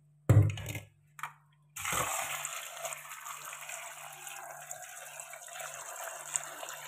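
A short knock in a stainless-steel sink. From about two seconds in, a kitchen tap runs steadily, pouring into a steel bowl of sliced salted jackfruit being rinsed.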